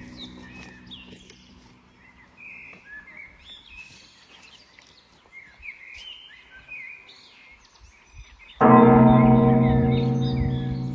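The last of a low guqin note dies away and birds chirp for several seconds. About eight and a half seconds in, a new low guqin note is plucked, rings out loudly and slowly fades.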